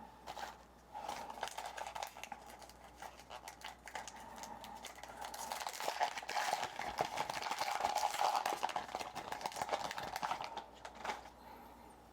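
Trading cards and their foil pack being handled: a dense run of quick clicks and rustling that builds up and then stops about a second before the end.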